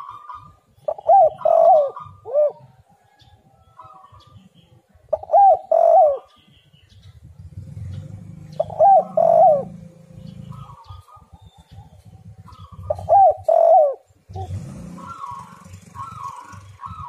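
Spotted dove cooing: four short phrases of two or three coos, one about every four seconds. Near the end a quicker run of softer, higher notes answers. A low rumble sits under the quieter stretches.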